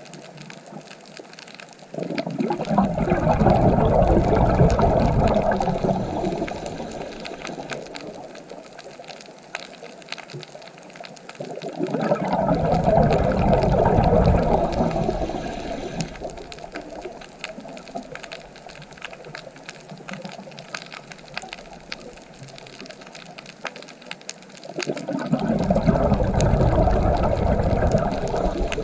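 Ocean waves surging in and washing back, three times, each swell building and fading over a few seconds, with a softer steady wash of water between them.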